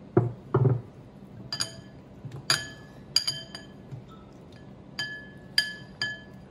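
Glass mixing bowls clinking as zucchini sticks are dipped in beaten egg: about eight sharp, ringing glass clinks at irregular intervals, after two dull knocks near the start.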